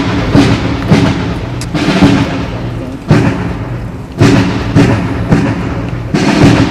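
Military band playing a march, sustained brass tones under loud, repeated drum beats.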